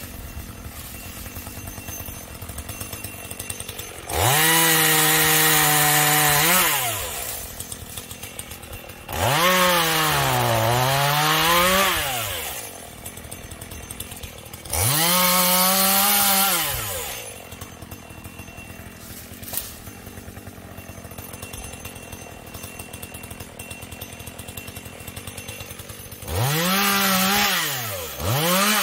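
Chinese-made two-stroke chainsaw idling, revved up four times for two to three seconds each. In the second and last bursts the engine pitch dips and recovers as the chain bites into wood.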